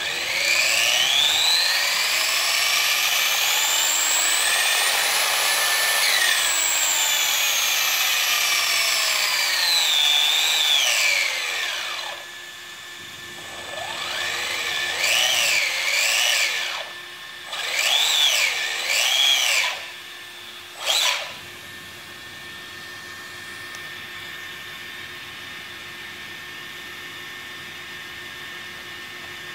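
Electric motor and drivetrain of an RC off-road buggy, its wheels spinning freely off the ground: a whine that climbs steadily in pitch for several seconds, then winds back down. Three shorter blips of throttle follow, each a quick rise and fall in pitch, the last very brief, and then only a faint steady hum is left.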